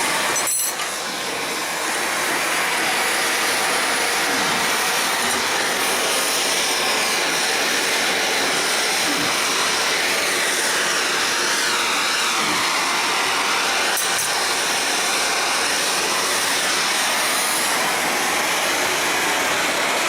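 Oxy-fuel cutting torch flame running with a steady, loud hiss as it heats a steel vise leg for straightening.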